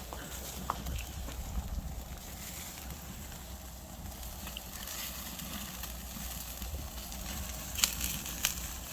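Pork sizzling on a wood-fire grill, with crackling and scattered sharp pops, two louder ones near the end, over a low rumble of wind on the microphone.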